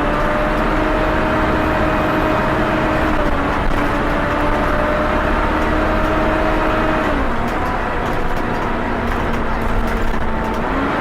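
Volvo B7TL bus running with its very loud cooling fan, which sounds like a vacuum-cleaner ('hoover') whine over the engine: a steady whine that drops in pitch about seven seconds in and rises again near the end.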